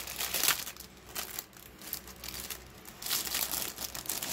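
Plastic bag around a model-kit sprue crinkling as it is unstuck and peeled open, in irregular bursts of rustling that are heaviest at the start and again near the end.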